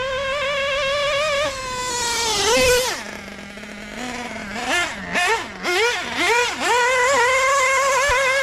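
LRP .32 (5.2cc) two-stroke nitro engine in a 1/8-scale buggy, running at high revs. It climbs to a peak, then drops sharply to idle about three seconds in. It is blipped four times and then held at high revs again.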